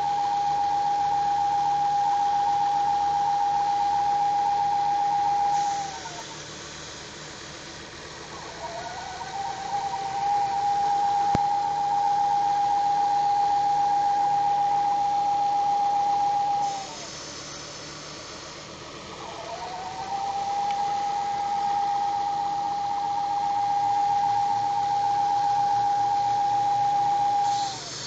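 High-pitched whine from a 2007 Ford Focus ST's engine, the weird sound the owner is asking about. It winds up in pitch, holds steady for several seconds, then winds down and stops, three times with a couple of seconds between.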